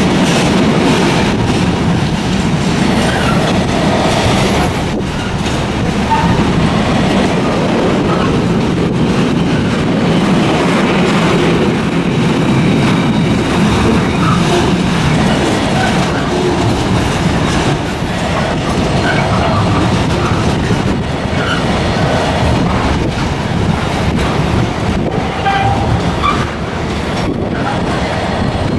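Container freight train's wagons rolling past close by: a steady rumble of wheels on rail with irregular clatter and brief high squeals from the wheels here and there.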